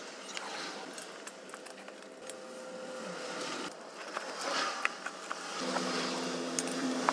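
Rubber rubbing and scraping with scattered small clicks as a motorcycle inner tube is tucked by hand into the tyre on a spoked rear wheel. A steady low hum comes in near the end.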